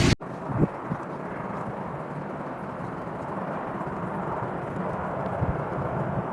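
Steady outdoor background noise from on-location footage, with a few soft low thumps.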